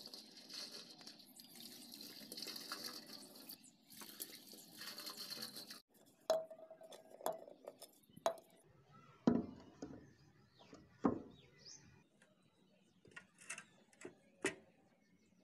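Water pouring out of a clear plastic filter housing into a drain for about six seconds, stopping suddenly. Then a series of separate sharp knocks and clacks of hard plastic filter parts being handled and set down.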